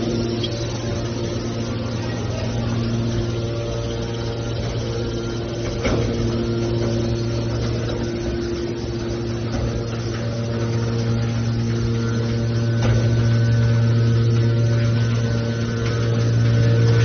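A small hydraulic can baler running: the steady hum of its electric motor and hydraulic pump, with a short knock about six seconds in and another near thirteen seconds.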